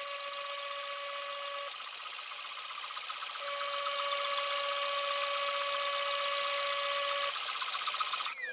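CNC milling spindle with an end mill cutting 6061 aluminum in a trochoidal path: a high-pitched whine with a fast, even pulsing as the cutter engages. A lower tone drops out and comes back partway through as the tool's load changes. Near the end the whine falls steeply in pitch as the spindle spins down.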